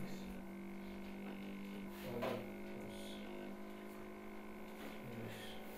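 Steady low electrical hum over faint room tone, with a brief faint knock about two seconds in.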